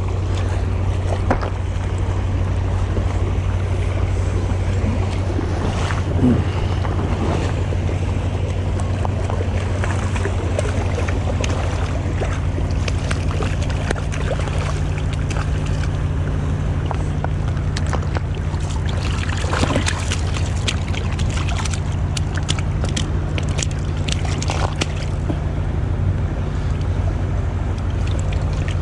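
Shallow creek water rushing steadily around the feet of a wading person, with a low rumble of wind on the microphone and scattered clicks and knocks from handling.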